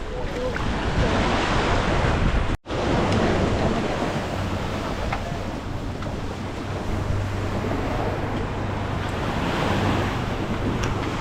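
Wind buffeting the microphone over the rush of surf, with a faint steady low hum underneath. The sound cuts out completely for a split second about two and a half seconds in.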